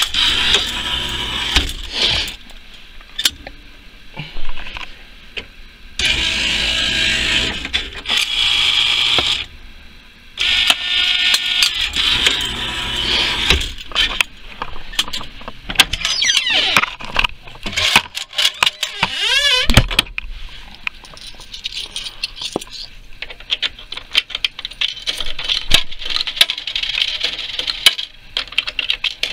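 Claw machine's electronic tones in stretches of a few seconds, then sliding-pitch sound effects, then many short clicks and clatter of handling.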